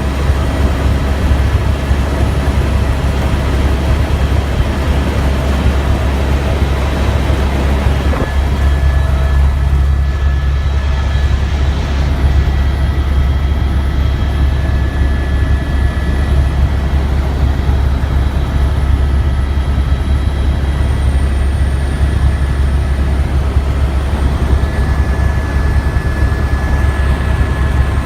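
Tour helicopter in flight, heard from aboard: a loud, steady low drone of rotor and engine, with faint thin steady high tones above it.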